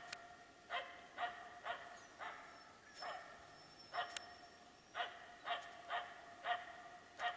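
Finnish spitz barking in a fast, steady series, about two barks a second with a brief lull partway through. This is the bark-pointing of a tree-barking bird dog, held at one spot to mark game it has found in a tree.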